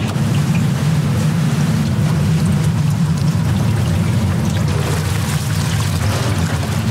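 Battered chicken deep-frying in a vat of hot oil: steady sizzling and bubbling, with a low steady hum underneath.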